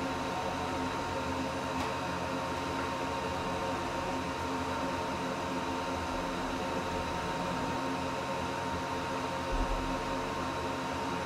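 Diode laser engraver running while it marks steel: a steady whir from its cooling fan and motors, with a constant high whine. A short low thump comes near the end.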